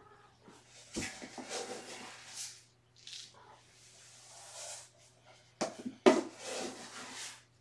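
Handling noises: rustling and scraping in several stretches, with a sharp knock about a second in and two more knocks near the end.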